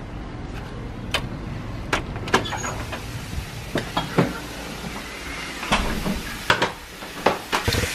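Footsteps and a door opening and closing, heard as scattered knocks and clicks over a steady low rumble, with bumps from the handheld camera being carried.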